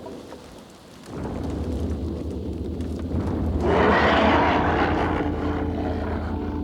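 A low, steady droning hum that starts about a second in, joined midway by a loud whooshing swell that slowly fades, like an engine or aircraft passing.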